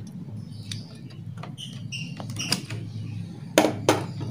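Small plastic clicks and scrapes as a utility knife blade pries the keyboard of a Toshiba Satellite L840 laptop out of its frame, ending in two sharp snaps close together about three and a half seconds in as the keyboard's retaining clips let go. A faint low hum runs underneath.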